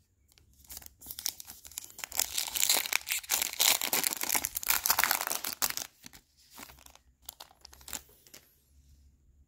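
Foil wrapper of a Panini Revolution basketball card pack being torn open and crinkled by hand, loudest from about two to five seconds in. After that come a few light clicks and rustles as the cards are handled.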